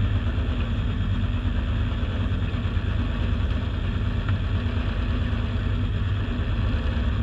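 A model boat's motor running steadily, picked up by a camera mounted on the hull, with the rush of choppy water around the moving boat.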